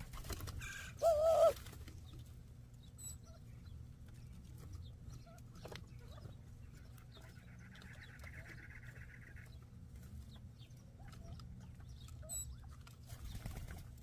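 A dove gives one short, loud, wavering call about a second in, followed by softer scattered bird calls and a buzzy stretch around eight seconds, over a low steady hum.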